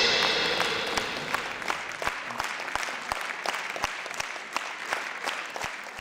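Concert audience applauding just after a piece ends; the applause starts full and thins out and fades, until separate individual claps stand out.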